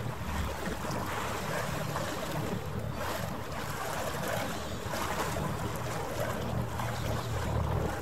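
Low, steady engine drone of a vessel on the harbour, with wind on the microphone.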